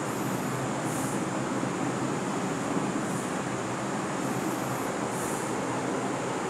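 Steady background noise, an even hiss and rumble with no distinct events.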